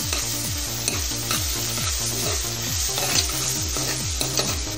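Chopped onions sizzling in hot oil in a pressure cooker as a metal ladle stirs and scrapes them around the pan: a steady frying hiss broken by a few light scrapes. The onions are being sautéed on low heat until they brown.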